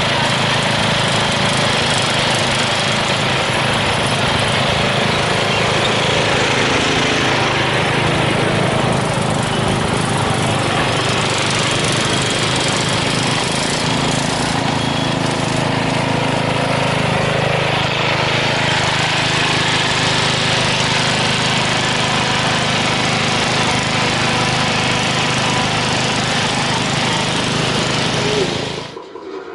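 Riding lawn mower's small engine running steadily, its pitch shifting a little now and then, cutting off suddenly near the end.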